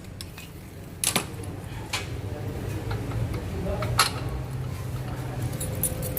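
A few separate sharp metal clinks and taps, about a second in, at two seconds and at four seconds, from tools and bolts being handled while a car's shock absorber is unbolted, over a low steady hum.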